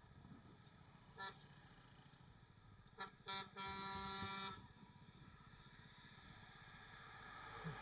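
A vehicle horn honking: one short toot, then two quick toots and a longer blast of about a second, with traffic noise building near the end.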